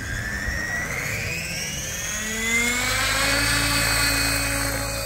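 Tron 7.0 electric RC helicopter spooling up on the ground. Its motor and drivetrain whine rises steadily in pitch over about the first three seconds, then holds level as the rotor comes up to head speed, with a steady low rotor thrum underneath.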